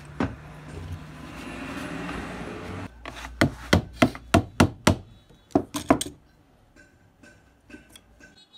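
Scratchy rustling of old copper windings being worked by hand on an alternator stator, then about nine sharp hammer blows on a chisel, about three a second, cutting the old windings free of the stator core.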